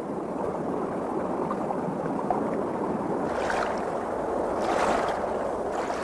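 Pond water lapping and gurgling in a steady wash, swelling a little shortly before the end.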